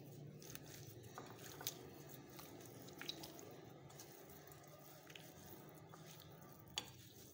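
Faint wet squishing and a few small clicks of fingers mixing raw fish pieces with dry spices in a glass bowl; the sharpest click comes near the end.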